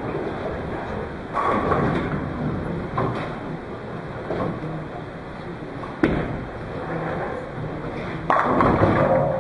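Bowling alley: lane and pin noise, with a sharp thud about six seconds in as the ball lands on the lane, then about two seconds later a loud crash of pins as the ball strikes them for a strike.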